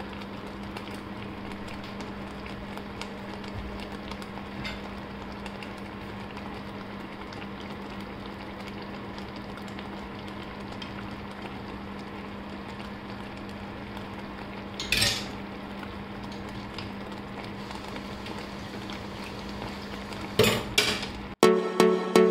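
Strawberry jam simmering in a nonstick pan: a steady bubbling hiss with a constant low hum underneath. A single clack about fifteen seconds in, then the plastic spatula knocking and scraping in the pan as the jam is stirred near the end.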